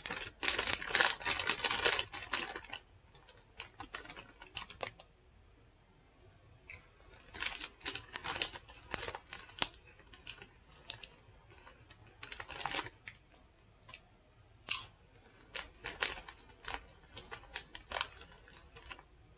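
Lay's potato-chip bag crinkling loudly as it is handled for the first few seconds, then scattered crinkles and crunches as a hand reaches in for chips and they are chewed.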